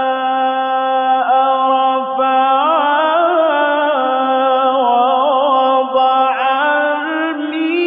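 A man reciting the Quran in the slow, melodic tajweed style. He holds long notes and ornaments them with winding turns of pitch, with only brief breaks.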